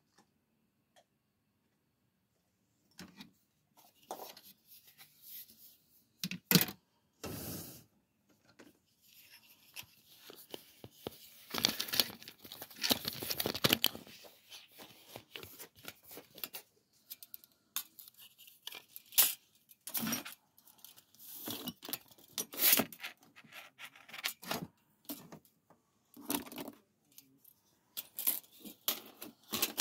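Scattered clicks, metallic clinks, scrapes and rustles as steel bo shuriken are handled and retrieved from a wooden target and the floor, starting about three seconds in.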